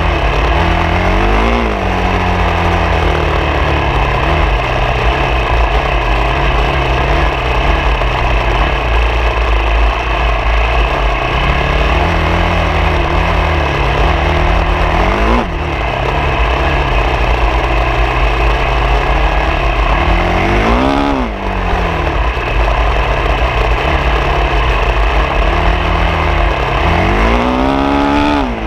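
Off-road motorcycle engine running under load on a trail, its note held mostly steady with a few quick rises and falls in pitch as the throttle is opened and closed, over a heavy low rumble.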